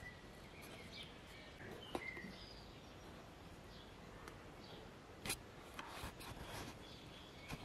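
Faint background noise with a few faint bird chirps and two small sharp clicks, about two and five seconds in.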